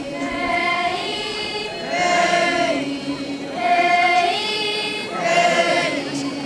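A group of young voices chanting a traditional Naga folk song in unison as a processional chant. Short sung phrases, each held and then falling away, repeat about every second and a half to two seconds.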